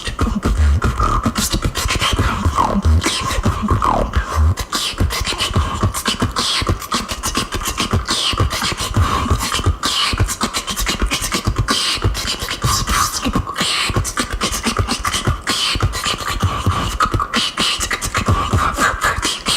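Female beatboxer performing a fast, dense beatbox routine: deep kick-drum hits, snare and hi-hat clicks in a steady rhythm, with occasional falling pitched vocal sweeps.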